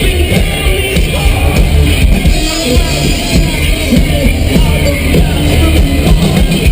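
Live rock music played loudly, heavy in the bass, with singing.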